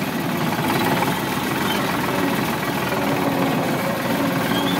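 Sonalika 745 tractor's diesel engine running steadily on the move, heard from the driver's seat while it pulls a heavily loaded trolley.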